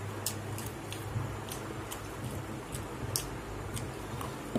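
Mouth and hand noises of people eating rice by hand: irregular light clicks and smacks several times a second, over a steady low hum.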